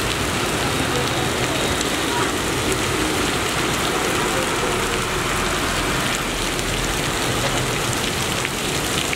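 Heavy rain pouring onto a street in a steady hiss, with the low rumble of slow traffic, engines and tyres on the wet road, running underneath it.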